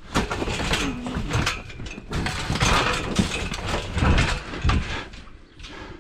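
Metal cattle-handling panels clanging and rattling repeatedly as a cow struggles against them, with thuds from her hooves and body.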